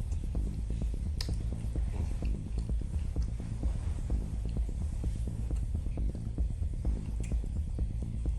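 Close-miked chewing of a bread-and-deli-meat grinder sandwich, a steady run of short, rhythmic mouth sounds.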